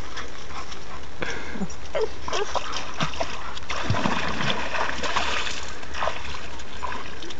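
Water splashing and sloshing as a person wades through a shallow pond and scoops at the water with his hands, in scattered short splashes.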